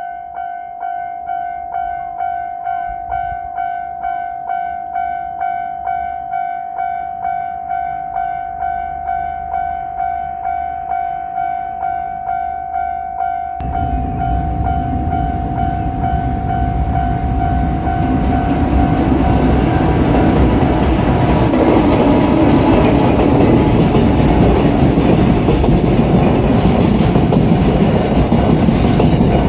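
Railway level-crossing warning bell ringing about twice a second. About 13 seconds in, a JR Freight EF210 electric locomotive and its freight train arrive and pass, a rumble that grows louder and drowns out the bell, with wheels clattering over the rail joints.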